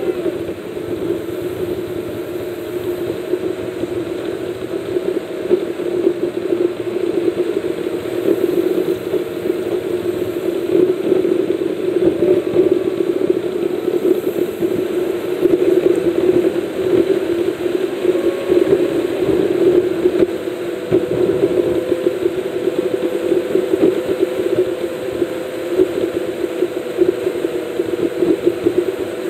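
Car engine drone and road noise inside the cabin at highway speed, steady throughout with a slight slow drift in pitch.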